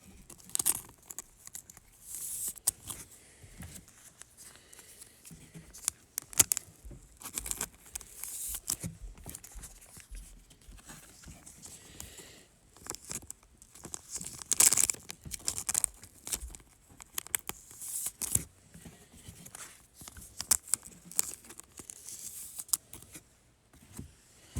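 Trading-card pack wrappers crinkling and tearing, with cards being handled: irregular sharp crackles and rustles.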